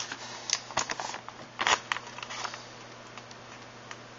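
Handling noise: a few brief rustles and clicks, the loudest about one and a half seconds in, over a steady low hum.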